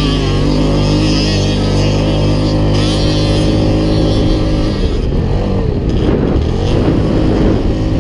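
Yamaha Grizzly 700's single-cylinder four-stroke engine running under way at steady revs, then revving up and down a few times about five seconds in.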